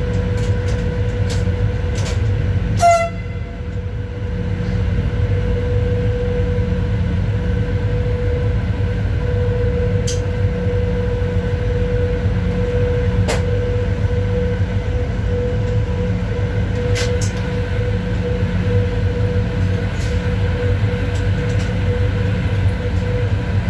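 Electric freight locomotive running slowly, heard from inside the cab: a steady low rumble with a constant hum, and scattered sharp clicks and knocks. About three seconds in there is a brief high toot, the loudest sound.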